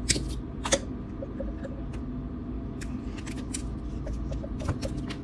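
Wire being cut with wire cutters or pliers: two sharp snips within the first second, then lighter clicks of the wire and tool being handled, over a steady low hum.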